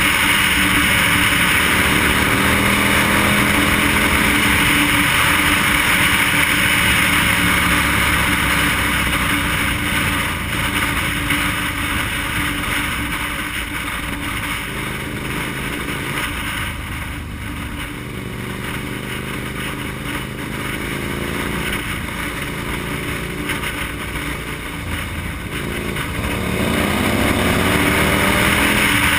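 KTM motorcycle's engine running under way, with a steady rush of wind noise over the microphone. The engine pitch climbs as it accelerates in the last few seconds, and it runs quieter through the middle.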